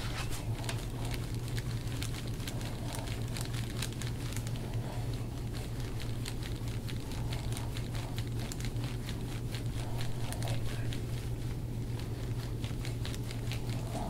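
Handheld double-ball (peanut) massage roller on a metal rod being rolled over clothing: rapid, irregular small crackling clicks and fabric rustle over a steady low hum.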